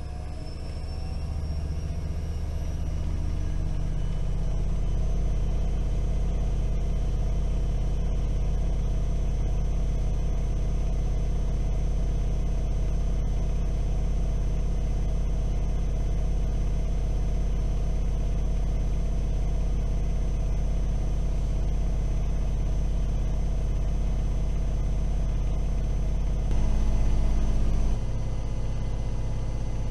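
AEG Öko-Lavamat washing machine spinning: the drum's pitch rises over the first few seconds and then holds a steady high-speed spin, with a low rumble and a steady whine. Near the end the sound turns louder for a moment and then settles. The spin is capped at 1000 rpm instead of 1600 because a non-original motor is fitted.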